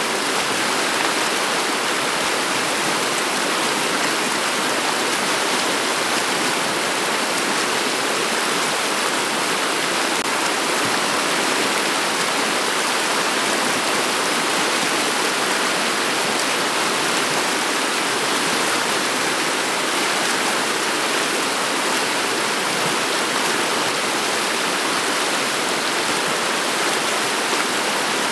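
Shallow river water running over a bed of pebbles and cobbles: a steady rushing ripple with no breaks.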